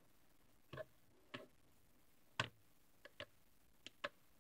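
Small plastic clicks and taps from handling a hinged plastic Play-Doh popsicle mould as it is pressed and opened: about seven short, irregular clicks over near silence, the loudest about halfway through.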